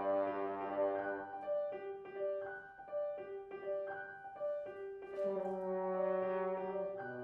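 French horn and piano playing a classical piece: a repeating figure of alternating notes, then a long, low held note about five seconds in.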